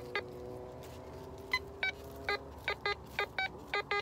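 Metal detector's audio signal as the coil sweeps over a buried target: short, choppy beeps, a few at first and then about three a second from about two seconds in. It is a crackly, not very clean signal, which the detectorist reads as a 62 on the display.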